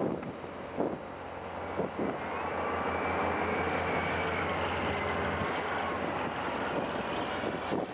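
Mobile reload conveyor running, its 70 HP Yanmar liquid-cooled diesel engine giving a steady drone while dirt pours into the hopper and rides up the feed belt, with a couple of dull thuds in the first two seconds.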